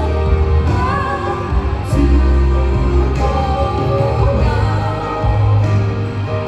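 Live band music: sustained chords over a strong bass, with wavering sung notes carrying no words.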